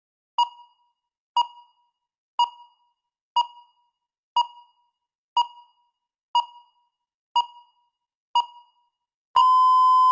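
Countdown timer beeping: nine short beeps at the same pitch, one a second, each fading quickly, then one long steady beep of about a second signalling that time is up.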